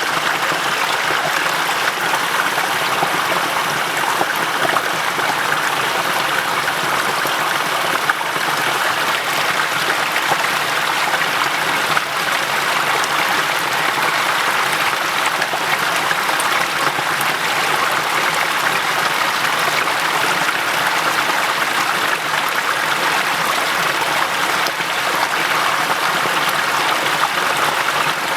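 Small waterfall cascading: a steady rush of running water, mostly a bright hiss with little deep rumble.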